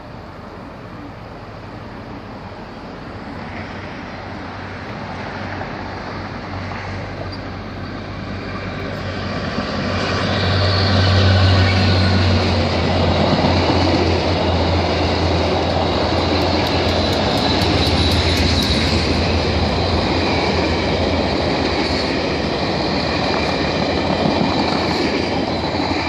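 VIA Rail passenger train hauled by F40PH-3C and P42DC diesel locomotives approaching and passing. A low diesel engine drone builds, is loudest about eleven seconds in, then gives way to the steady rumble of passenger cars rolling by, with thin high wheel-squeal tones over it.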